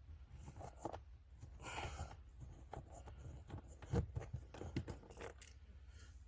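Faint clicks, small knocks and rustling from working the last small 7mm screw out of a cover by hand.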